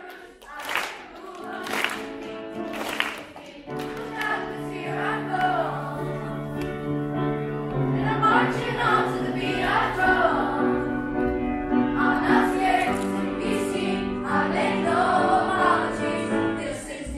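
Choir of voices singing. In the first few seconds there are sharp claps about once a second; from about four seconds in, sustained accompanying chords hold under the singing until it ends just before the close.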